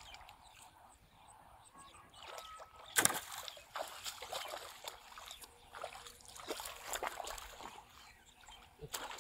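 Shallow muddy water splashing and sloshing as a person wades and drags a long bamboo pole through it; one sharp, loud splash about three seconds in, then a run of smaller, irregular splashes.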